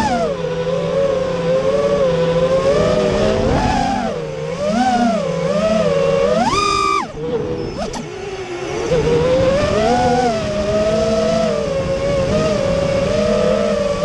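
FPV racing quadcopter's four Emax RS2306 2400kv brushless motors spinning Dalprop Cyclone 5-inch three-blade props: a buzzing whine that rises and falls with throttle. About six seconds in it climbs sharply in pitch, then drops away as the throttle is cut, and picks up again about two seconds later.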